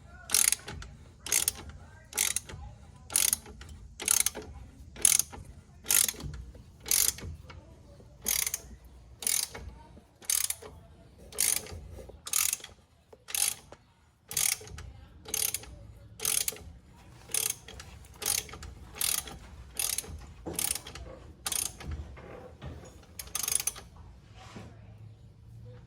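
Ratchet socket wrench clicking on its return strokes, about two clicks a second with a short pause partway, as a 15 mm brake caliper bolt is turned out by hand.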